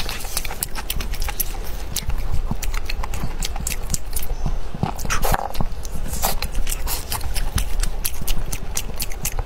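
Close-miked eating sounds: wet chewing and lip-smacking, with many quick, irregular clicks, as someone bites into and chews a meat-filled bun.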